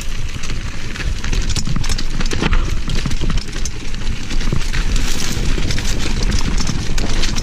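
Mountain bike rolling down a rocky dirt trail: tyres crunching over stones, with the bike clattering and rattling at each bump over a steady low rumble.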